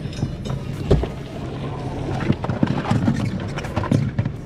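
Outboard motor on an inflatable boat running steadily at low speed while the anchor is let down on its chain and rope. Short knocks and rattles sound over the motor, with a louder thump about a second in.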